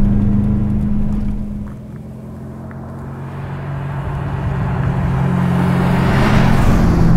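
1988 Callaway Twin Turbo C4 Corvette's twin-turbo V8 running under power, heard from inside the car for the first couple of seconds. It then sounds from trackside as the car approaches, getting steadily louder toward the end.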